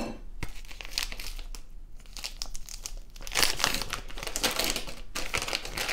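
Packaging crinkling and rustling as a block of frozen kefir is handled and turned out onto gauze, growing busier and louder about three seconds in.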